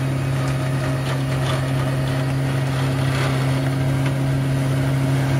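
Solis compact tractor's engine running steadily under load, driving a rear-mounted Wessex flail mower as it cuts grass: a steady low drone.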